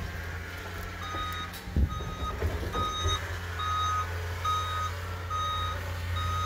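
Backup alarm on a snow-clearing loader beeping steadily about once a second, starting about a second in, over the steady hum of its diesel engine.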